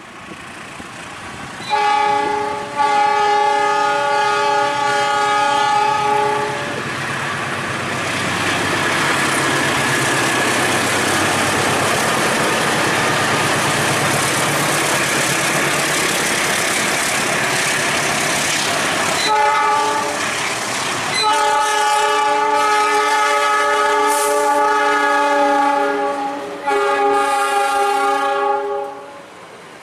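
Indonesian diesel-hauled train sounding its multi-tone horn, a short blast and then a long one, followed by the steady roar and rail clatter of a train passing at speed close by. Near the end the horn sounds again: a short blast, then two long ones.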